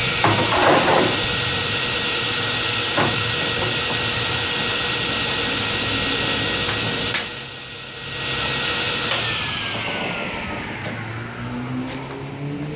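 A contractor table saw's belt-driven motor and blade run steadily while a long board is ripped through it. Partway through the level dips briefly, then a tone falls in pitch and the sound fades over the last few seconds.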